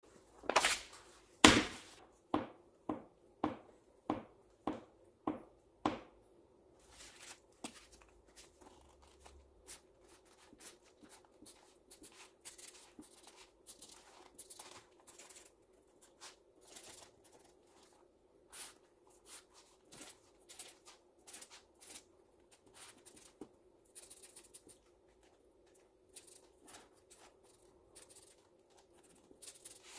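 Sharp knocks: two loud ones, then about six evenly spaced strikes about half a second apart. After these stop, many small irregular clicks and rustles of handling continue over a faint steady hum.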